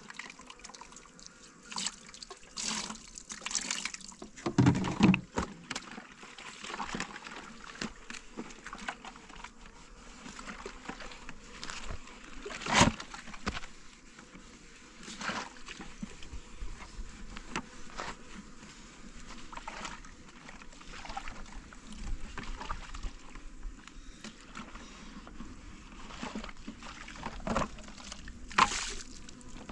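Water trickling from a hose into a plastic jug, with a few sharp knocks of plastic water containers being handled, the loudest about 5, 13 and 29 seconds in.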